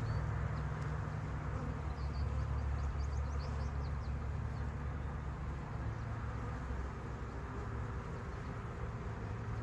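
A mass of honeybees from a package buzzing in a steady, low hum.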